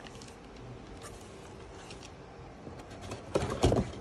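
Faint room noise, then from about three seconds in a run of sharp scrapes and knocks as a cardboard box and its molded pulp packing tray are handled.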